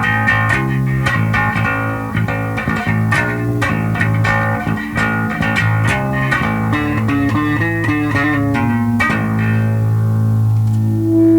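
Electric bass (a Squier Mini P Bass with DiMarzio Relentless pickups) played through a Sound City Master Lead 50 valve head, running a riff of quickly picked notes. About nine seconds in it settles on a held note, and near the end a steady higher tone swells in over it: amp feedback.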